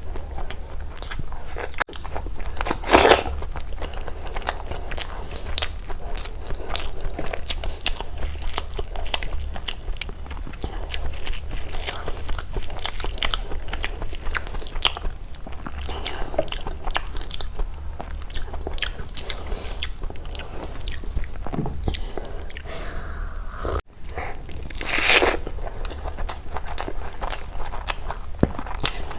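Close-miked eating: steady chewing and biting with many small wet mouth clicks, over a low steady hum. Two louder bursts stand out, about three seconds in and near the end.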